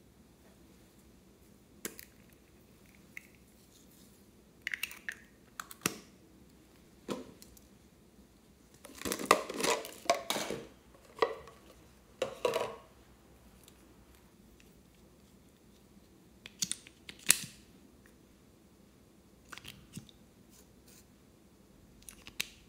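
Hands handling small plastic cosmetic containers, a toy-shaped case and a lip tint bottle: scattered sharp clicks and crinkly rustling, with a denser run of crackling about nine to eleven seconds in.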